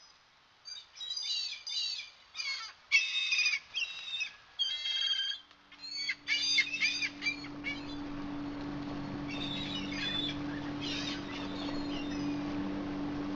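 Birds chirping and calling in quick repeated bursts through the first half. About five seconds in, a small fishing boat's outboard motor comes in and runs steadily with a low hum.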